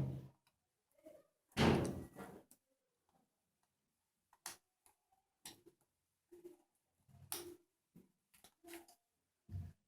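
Small hard parts being handled, clicking and knocking: one louder knock about two seconds in, then scattered light clicks and taps.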